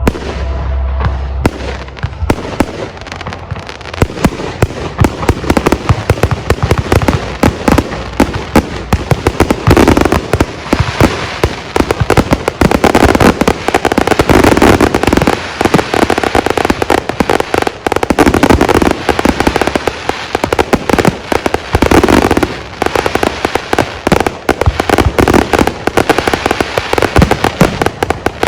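Aerial fireworks display: a dense, rapid barrage of loud shell bursts and bangs that thickens a couple of seconds in and keeps going.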